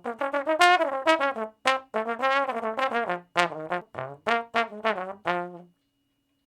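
Tuba playing a quick run of short, detached notes, about four a second, moving up and down in pitch; the last note is lower and held a little longer, and the playing stops a little before the end.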